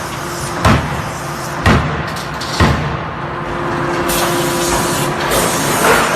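Forging hammer striking hot steel, three heavy blows about a second apart, followed by a steady hiss of machinery from about four seconds in.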